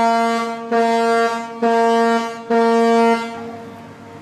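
Ship's horn of the Irish naval patrol vessel LÉ Aoife sounding a series of loud short blasts, less than a second each and about one a second, ending about three seconds in. These are the last of five short blasts, the signal for danger given as the ship runs toward a pontoon.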